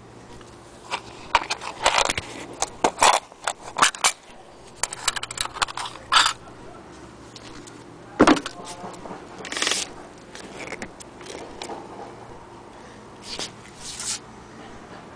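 Handling noises: paper rustling and scattered clicks and scrapes as an old booklet and papers are moved about, with a single sharper knock about eight seconds in.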